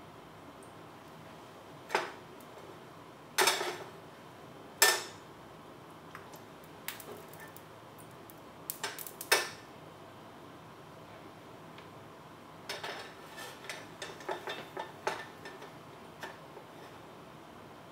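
Stainless steel pan clanking against the coil of an electric hot plate as it is lifted, tilted and set back down: four sharp metal clanks in the first half, then a run of lighter clinks and rattles near the end.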